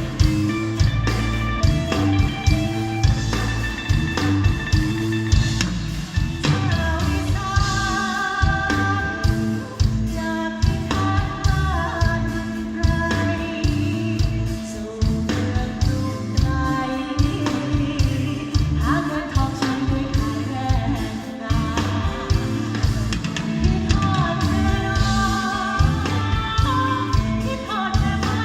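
Band music: a steady beat and bass under a lead melody line.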